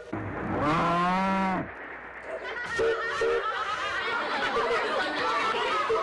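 Pigs calling: one long drawn-out call that rises and falls about a second in, then a run of short, broken squeals and grunts.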